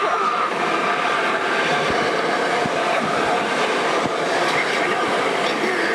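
Pachinko parlour din: a steady, dense metallic clatter of steel balls running through the machines, mixed with the machines' electronic sound effects.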